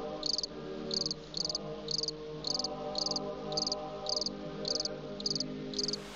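A cricket chirping steadily about twice a second, each chirp a quick trill of pulses, over soft sustained music chords.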